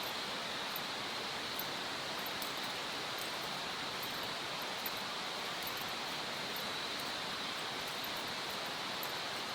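Steady, even rushing noise, like flowing water, with faint scattered high ticks and crackles, as of a small wood campfire burning.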